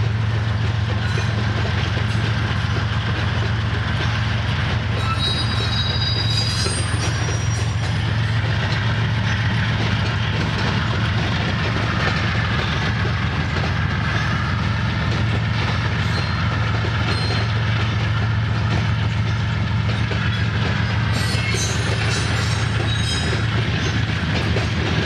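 Canadian Pacific diesel locomotives running with a steady low engine drone as a locomotive consist rolls slowly past. Faint high wheel squeals come a few seconds in, and light wheel clicks near the end.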